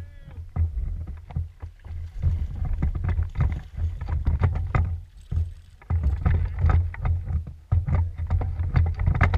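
Repeated low thumps and knocks from a small fishing boat's hull and deck as anglers move about while landing a hooked bass, with short sharp clicks and the bass splashing at the surface beside the boat.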